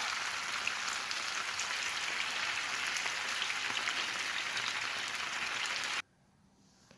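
Marinated chicken pieces shallow-frying in a little coconut oil in a pan: a steady, dense sizzle with crackles. It cuts off suddenly about six seconds in.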